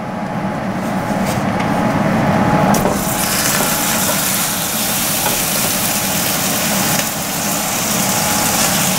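Raw ground beef and Italian sausage sizzling in hot olive oil in a cooking pot as they are laid in and pushed with a wooden spoon; the sizzle grows much stronger about three seconds in. A steady low hum runs underneath.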